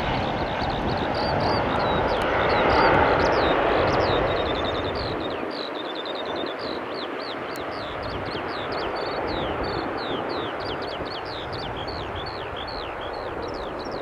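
Jet airliner engine noise at an airport, swelling to its loudest about three seconds in and then fading to a steady distant rush. Many small birds chirp busily over it throughout.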